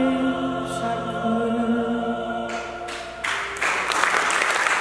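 The closing music ends on a held, choir-like vocal chord that fades out about three seconds in. Audience applause then breaks out and quickly grows loud.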